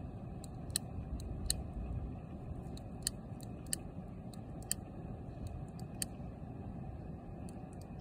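A lighter clicking again and again at uneven intervals, about ten sharp clicks, as it is struck to light a firework fuse, over a steady low rumble.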